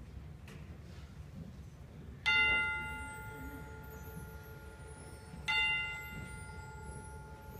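Orchestral chimes (tubular bells) struck twice, about three seconds apart, each stroke ringing on and slowly fading, over low hall rumble.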